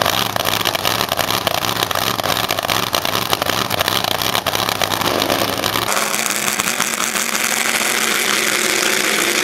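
Nitro funny car's supercharged, nitromethane-burning V8 running loud and rough at the starting line, then changing abruptly about six seconds in as the car launches at full throttle down the drag strip.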